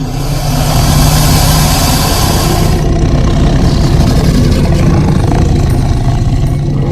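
Synthesized Tyrannosaurus rex sound effect: a long, loud, deep rumbling growl, with a harsh hissing edge for the first three seconds or so that then fades back.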